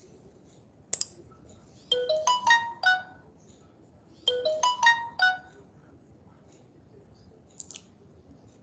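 Phone ringtone: a short melody of about five electronic notes, played twice. There is a single sharp click about a second in.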